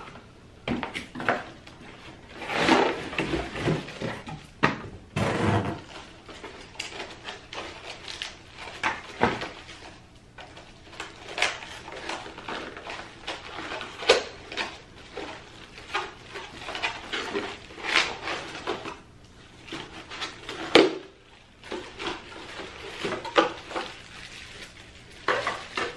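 Unpacking a cardboard box of bakeware by hand: irregular rustling of cardboard and plastic wrap, with knocks and clatter as the metal baking pans are handled and lifted out.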